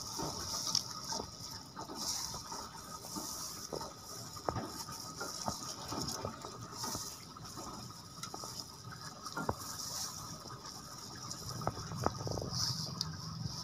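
Hands squeezing and mashing soft cooked white mulberries in their cooking water: irregular wet squelching and sloshing.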